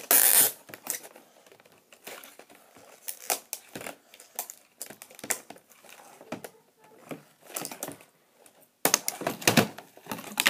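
Stiff clear plastic packaging of a BB gun crinkling and crackling as it is pried open and handled, in irregular bursts: a loud burst right at the start and another about nine seconds in, with quieter crackles between.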